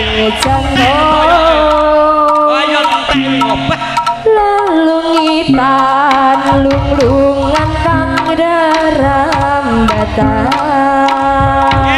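Javanese jaranan ensemble music: a high melody line that bends and slides in pitch over quick kendang hand-drum strokes and deep low notes.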